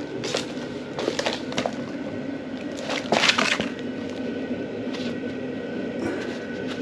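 Bubble wrap and plastic packing crinkling and rustling as a wrapped awning is handled, in scattered crackles with the loudest burst about three seconds in.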